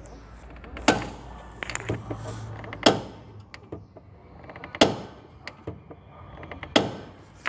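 Clutch of a Fiat Palio Weekend 1.4 giving a sharp clunk from the transmission each time the pedal is pushed down, four times about two seconds apart. The mechanic takes it for something broken in the clutch, such as the diaphragm spring or a pressure-plate spring.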